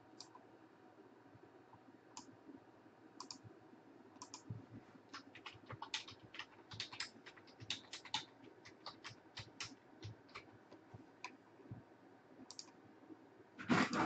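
Faint typing on a computer keyboard, with keys clicking in irregular runs, busiest in the middle. Near the end a louder sound breaks in: a dog starting to whimper.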